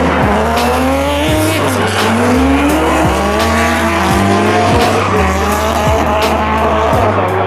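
Drift cars' engines revving hard, pitch rising and falling as they slide, with tyre squeal from the spinning rear wheels. A chill-hop beat with a stepped bass line runs underneath.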